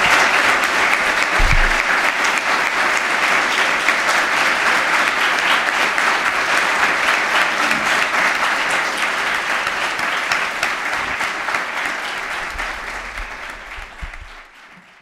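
Audience applauding steadily, then dying away over the last few seconds.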